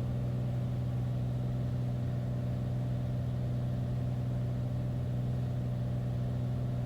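Single-engine Beechcraft A36 Bonanza's piston engine and propeller droning steadily in the cockpit during the landing pattern, at an even pitch and level.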